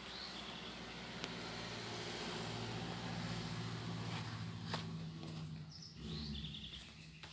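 Small battery-powered motor of a walking zombie-hand decoration whirring steadily as its crawling mechanism runs, with a couple of sharp clicks.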